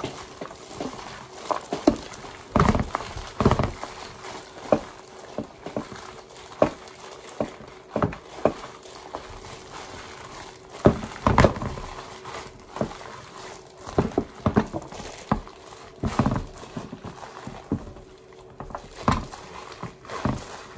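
Gloved hands kneading and mixing a raw ground-meat meatloaf mixture in a dish, giving irregular slaps and knocks with a few heavier thumps.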